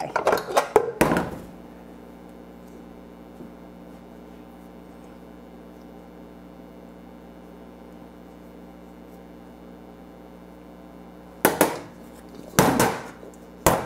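Metal clanks as a stainless-steel stand-mixer bowl and its beater are unhooked, packed into the first second or so. Then a steady low hum, and near the end three or four knocks of the metal bowl against a steel counter.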